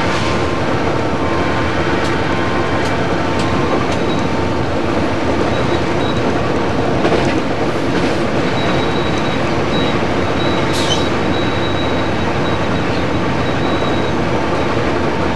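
Inside the cab of an Amtrak GE P40-8 diesel-electric locomotive moving at speed: loud, steady engine and running noise, with a few sharp clicks and a brief high squeak about two-thirds through.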